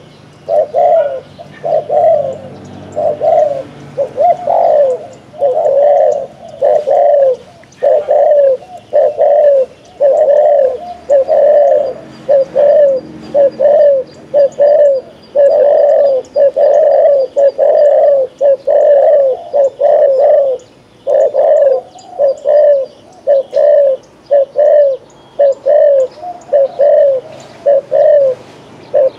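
Spotted dove cooing loudly and rapidly, short coos one after another at about one to two a second with hardly a pause. This is the bird's 'gù' calling, the coo of a trained decoy dove.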